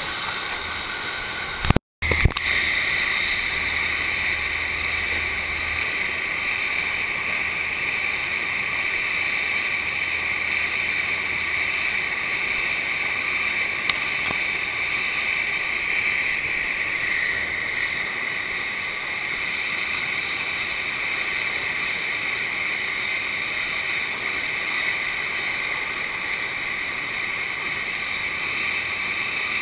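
Steady rushing of water pumped up the slope of a FlowRider-type standing-wave ride. The sound drops out briefly about two seconds in.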